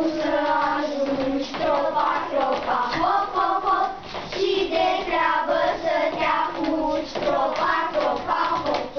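A group of children singing together, with sharp rhythmic taps and claps through the song.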